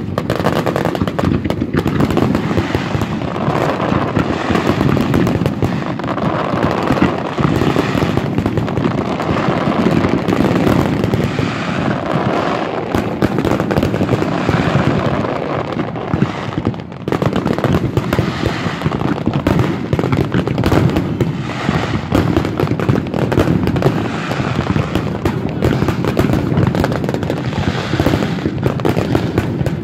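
Fireworks display: a dense, continuous barrage of bangs and crackling, with a brief lull a little past halfway.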